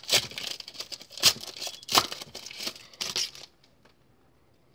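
Plastic wrapper of a Panini Score football card pack crinkling as it is torn open and pulled off the cards, with a few sharp rips. The crinkling stops about three and a half seconds in.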